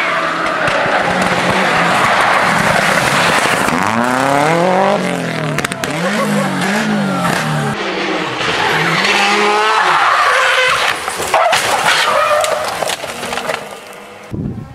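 Rally car engines revving hard, the pitch repeatedly climbing and dropping through gear changes, over loud tyre and road noise. The sound drops away near the end.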